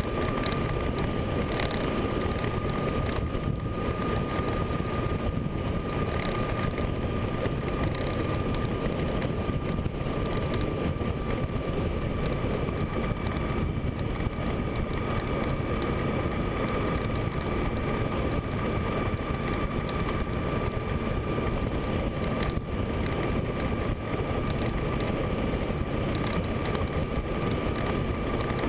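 Motorcycle cruising at steady freeway speed, heard from a bike-mounted camera: a constant rush of wind over the microphone with engine and road noise beneath, and a steady high whine.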